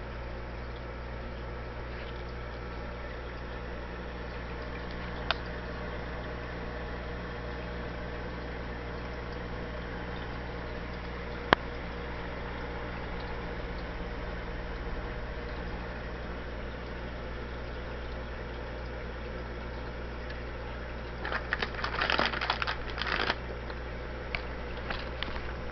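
Aquarium hang-on-back filter running: a steady trickle of falling water over a low motor hum. Two sharp clicks about five and eleven seconds in, and a louder spell of crackling noise lasting about two seconds near the end.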